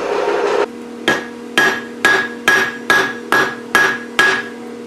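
Blacksmith's hammer striking an anvil in a steady rhythm, about two blows a second, each blow leaving a bright ring. Before the blows begin, a steady rushing noise cuts off abruptly under a second in.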